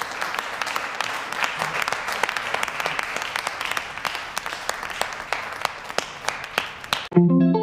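Audience applauding, a dense patter of many hands clapping, which cuts off suddenly about seven seconds in and gives way to electric guitar music.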